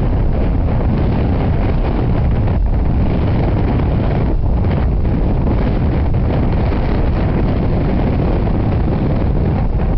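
Loud, steady rumbling noise, heaviest in the low end, with no clear tones or distinct events.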